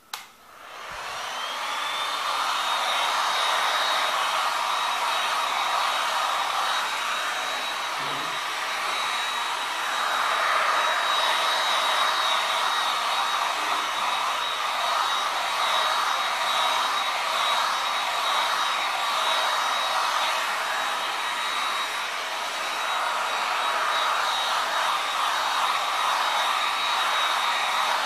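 A hand-held electric hot-air blower is switched on with a click. Its motor whine rises to a steady high pitch within about a second and a half, then it runs steadily with a loud rush of air.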